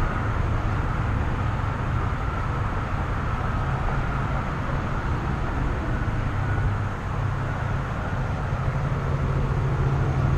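Steady low rumble of road traffic crossing the bridge trestle close by.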